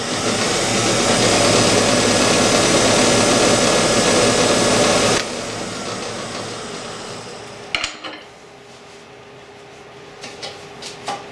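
Wood lathe running with a loud, rough scraping for about five seconds that stops abruptly; the lathe keeps running more quietly, with a sharp knock near eight seconds and a few light clicks.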